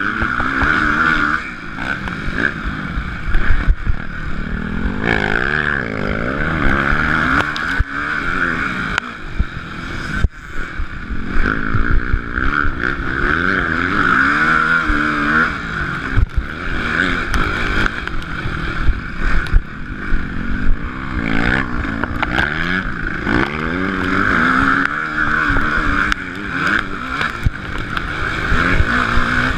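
Motocross bike engine ridden hard, revving up and falling back again and again as the rider works the throttle through the track, with the odd knock from bumps.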